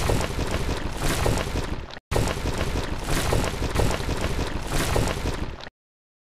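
Sound effect of a concrete wall breaking apart: a dense, crackling wash of crumbling rubble and falling debris. It breaks off for an instant about two seconds in, resumes, and cuts off abruptly near the end.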